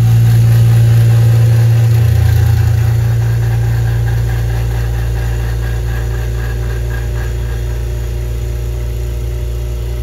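Electric vacuum pump running with a loud, steady hum, pulling a vacuum on a tank that holds a cup of diesel–kerosene fuel. As the vacuum deepens, air bubbles come out of the fuel. The hum eases slowly in level.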